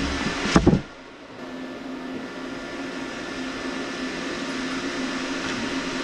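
A couple of sharp clicks about half a second in, as the plastic strain-relief bushing on the oil burner's blower-motor wire is worked out with pliers. Then a steady low hum with one held tone.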